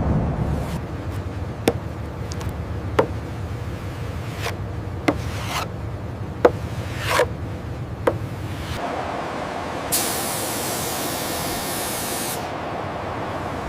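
Hull paint-prep work: scattered sharp taps and scraping over a low steady drone, then a paint spray gun hissing steadily for about three seconds.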